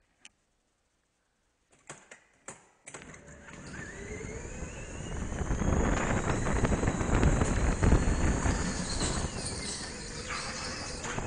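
A few small clicks and knocks, then about three seconds in an indoor go-kart pulls away and speeds up, its engine note rising slowly in pitch, with wind rushing over the helmet-mounted microphone.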